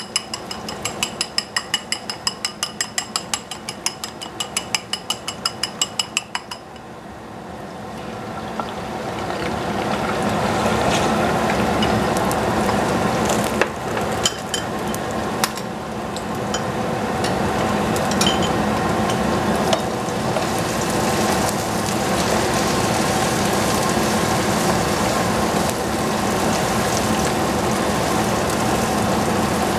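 Eggs being beaten with chopsticks in a bowl: fast, even clicking with a ringing tone, several strokes a second, stopping about six seconds in. Then beaten egg frying in hot oil in a stainless saucepan, a sizzle that swells over a few seconds and holds steady.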